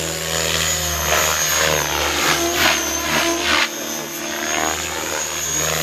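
Aircraft engine running steadily overhead: a deep hum with a thin, high, steady whine above it.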